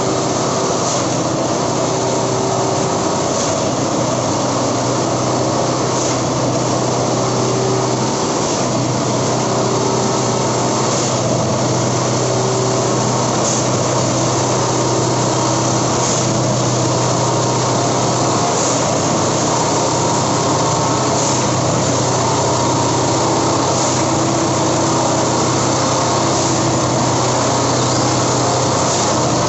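Plasser & Theurer 09-32 CSM track tamping machine running steadily as it rolls slowly past on the rails, its diesel engine giving a constant hum. A faint tick comes about every two and a half seconds.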